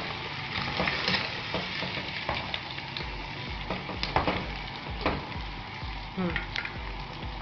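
Chicken pieces sizzling as they fry in hot oil in a pot, stirred with a spoon that scrapes and clicks against the pan. A low pulsing hum joins in from about three seconds in.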